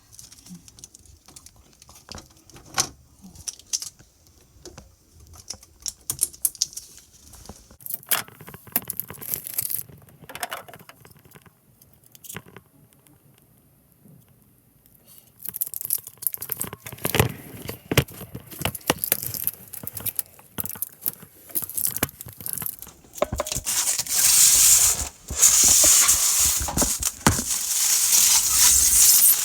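Handling noise: crinkling and tearing with scattered clicks and knocks. It is sparse at first, goes almost quiet about halfway, then becomes dense and loudest near the end.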